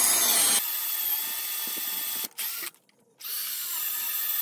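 Electric drill boring into a wooden log with a 1-inch self-feed bit to cut mortise holes. It runs steadily, stops briefly around the middle, then starts drilling again.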